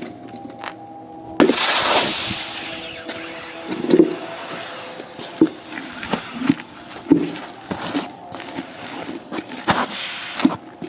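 Old dry-rotted cart tire being popped the old-fashioned way: a sudden loud rush of hissing noise about a second and a half in that fades over a few seconds, followed by a series of separate knocks.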